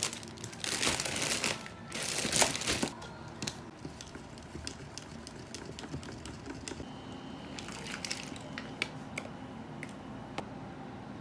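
Crinkling and rustling of handled material such as paper or plastic, in loud bursts over the first three seconds, followed by scattered light clicks and taps.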